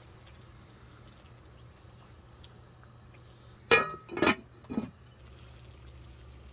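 Creamy sauce simmering in a cast iron skillet over a steady low hum. A little past halfway, the glass lid clinks sharply against the skillet three times, and after that the bubbling hiss is a little louder.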